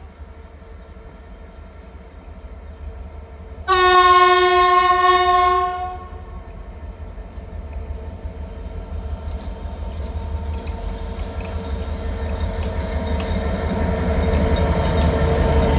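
A train horn sounds one steady blast of about two seconds. Then an approaching train's running noise grows steadily louder, with scattered sharp clicks.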